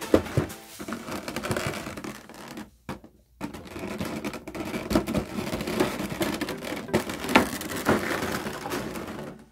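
Clear plastic blister trays of a boxed toy set being handled and lifted: irregular crinkling, clicks and taps of thin plastic, with a brief pause about three seconds in.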